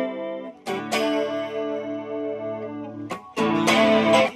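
Electric guitar chords played through a Fender Japan SL-225C combo amplifier, which is working again after its broken gain pot was replaced. A chord is struck about a second in and rings as it fades. A louder chord is struck about three seconds in and is cut short near the end.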